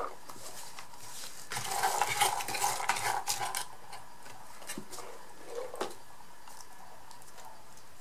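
Small rolled paper slips rattling and clicking as fingers stir through them inside an open box, for about two seconds, followed by a few soft clicks as one slip is picked out.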